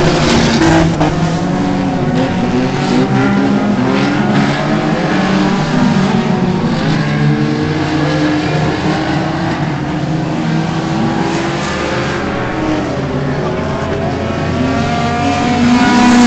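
Race car engines running hard, the revs climbing and dropping again and again as the cars accelerate and lift, several engines heard at once.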